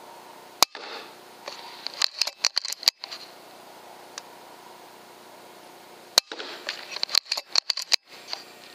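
PCP air rifle (FX Impact) shooting twice, about five and a half seconds apart. Each sharp crack is followed a second or two later by a quick run of clicks.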